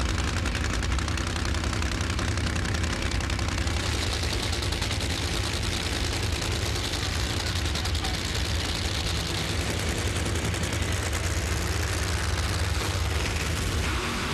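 Drag-racing engines running loud, with a dense, rapid crackle over a deep throb.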